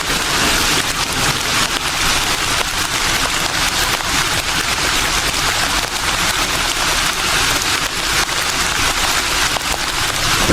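Steady, dense natural noise ambience with an even hiss and a fine crackling patter and no change in level.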